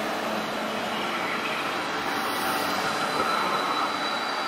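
Electric tram moving along the platform, steady rolling noise with a faint high whine held throughout.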